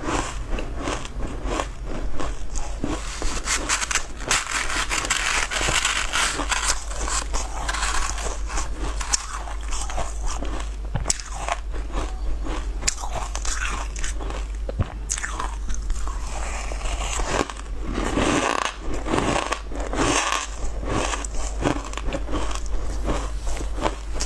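Mouth crunching and chewing shaved ice topped with green powder, close to a clip-on microphone: many quick, crisp crunches and crackles. A steady low hum sits underneath.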